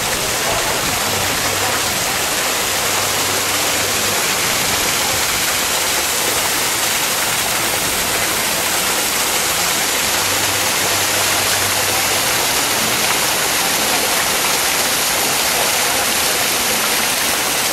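Fountain water pouring from the sculpted rocks and splashing into its stone basin: a steady, unbroken rush.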